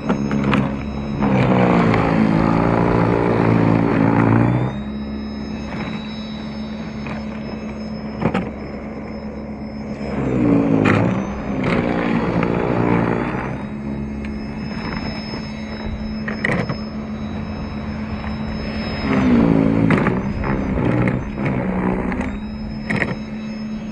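EGO SNT2100 cordless single-stage snow blower running at full speed through heavy wet snow: a steady electric motor hum with a thin high whine. Three louder, rougher stretches come and go, starting about a second, ten seconds and nineteen seconds in.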